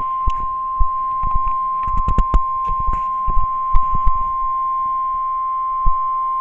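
NOAA Weather Radio's 1050 Hz warning alarm tone: one loud, steady, unbroken beep sounding from the radio's speaker, the signal that a warning message is about to be broadcast. Irregular short clicks and thumps sound over the tone.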